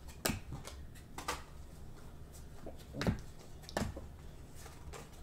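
Trading cards and card packs being handled on a table: a few short taps and rustles, scattered and uneven, over a low steady hum.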